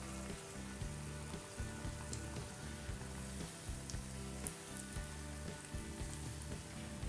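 Semolina donuts deep-frying in olive oil: a steady sizzle with scattered small crackles.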